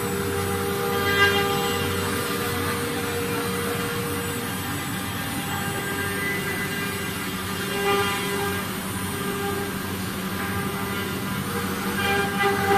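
Spindle of a four-axis CNC router running at high speed with a steady whine while its bit carves wood, the cutting noise swelling briefly a few times.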